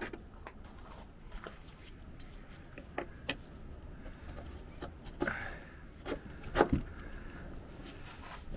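Light knocks and clicks as a rudder blade is fitted to the fiberglass hull of a 12 Metre class model yacht, the sharpest knock about two-thirds of the way through, over a low rumble of wind on the microphone.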